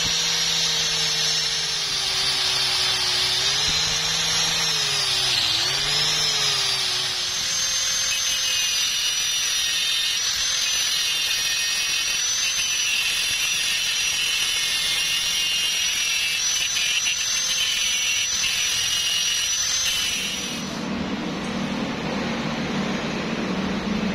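Angle grinder with a wire brush running against a rusty steel flat bar, scouring the rust off down to bright bare metal; the motor pitch wavers under load in the first few seconds. About 20 seconds in the scraping noise drops away and a quieter, lower sound follows.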